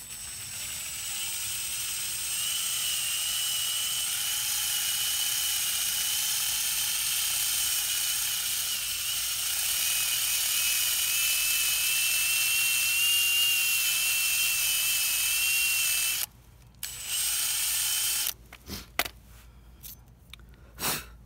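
Impact driver spinning a stainless steel brake caliper slide pin against 180-grit sandpaper, polishing off corrosion: a steady high whine over a sanding hiss for about sixteen seconds. A second short run and a few brief trigger blips follow near the end.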